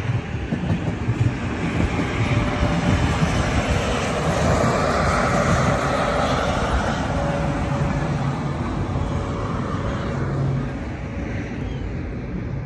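A modern articulated commuter passenger train passing by on the track, its running noise with a faint steady hum swelling to a peak about halfway through and easing off near the end.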